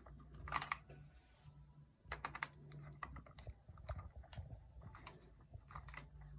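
Faint, irregular clicks and taps of small metal parts being handled: a dial indicator and its spark-plug-hole adapter being fitted by hand into cylinder three of a Mercury 2.5 L V6 outboard, with a low steady hum underneath.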